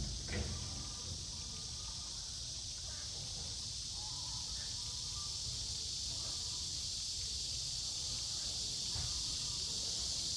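Insects chirring steadily outdoors, a continuous high-pitched buzz, with faint short distant calls and a brief knock at the very start.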